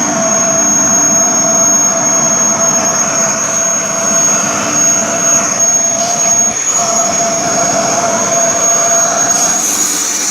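Kirby Sentria vacuum cleaner running while vacuuming a mattress: a loud, steady motor whine with a high tone over a lower hum. The sound dips briefly about six and a half seconds in.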